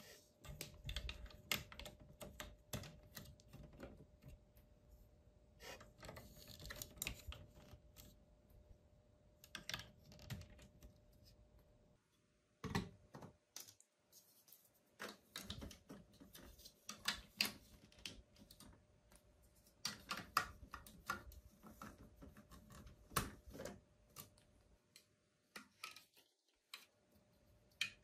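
Large plastic building blocks and marble-run track pieces being handled and pressed together: irregular light clicks and knocks of plastic on plastic, with a couple of short pauses.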